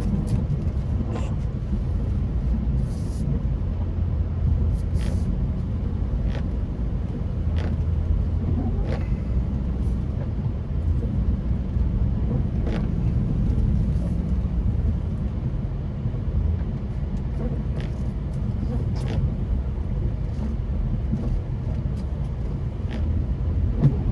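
Steady low rumble of a 2005 Chevrolet Avalanche plow truck driving and pushing snow with its front blade, heard from inside the cab. Faint sharp clicks come every few seconds.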